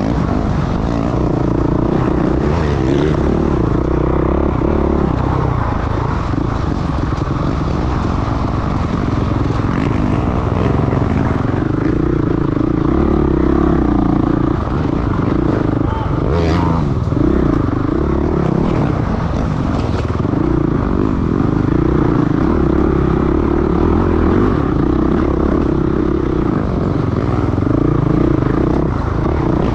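Dirt bike engine running under load, its pitch rising and falling repeatedly as the throttle is opened and closed, with a sharp knock about sixteen seconds in.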